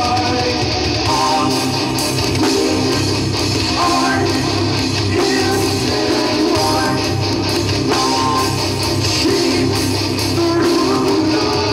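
Live heavy rock band playing loud, with distorted electric guitars, bass and drums.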